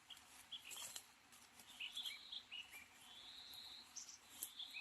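Faint bird calls: many short chirping notes, with one longer drawn-out call in the second half, over a soft background hiss.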